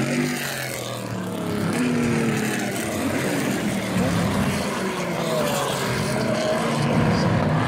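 Several vintage race-car engines at once, V8s and Porsche flat-sixes, running through a slow corner, their overlapping pitches gliding down and up as the cars pass.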